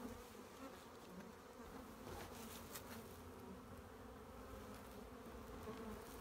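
Honeybee swarm buzzing: a faint, steady hum of many bees flying around a hive box just after being shaken into it, with a couple of faint taps about two to three seconds in.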